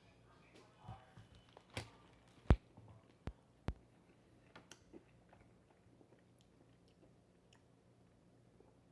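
A person biting into and chewing a crispy fried chicken sandwich. There are a few sharp crunches in the first four seconds, then fainter chewing.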